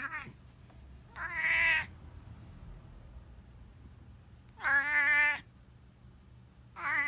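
Elderly black cat meowing: a brief call at the very start, then three drawn-out, strongly pitched meows a few seconds apart. The meows are word-like, the kind heard as the cat saying 'ohayou' (good morning).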